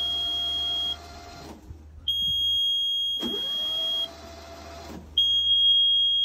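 Yanmar 3GM30F three-cylinder diesel turned over by its starter motor with the decompression levers open and the fuel shut off, so it spins freely with a steady whine. The whine stops about a second and a half in, then starts again a little after the middle, rising in pitch as it spins up, and runs for nearly two seconds. The control panel's alarm buzzer sounds a steady high beep in three spells.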